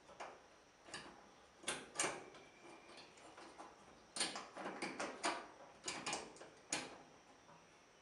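Irregular light clicks and taps of metal on metal as the ring terminals of a clothes dryer power cord are handled and fitted over the threaded posts of the dryer's terminal block.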